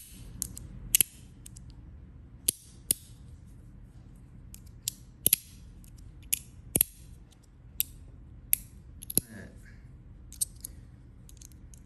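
Metal magnetic track slider fidget toy worked back and forth by hand, giving sharp irregular metal clicks, about one or two a second.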